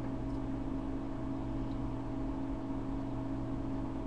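Steady low hum with a few constant tones over a faint even hiss, with no sudden sounds.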